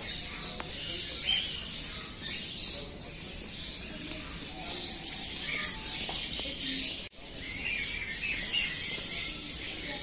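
Small birds chirping and twittering in many short, high, overlapping calls. All sound cuts out briefly about seven seconds in.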